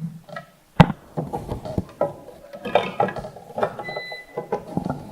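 Irregular clicks, taps and knocks of hands fitting a CPU fan into a desktop computer's system unit, with one sharp knock about a second in.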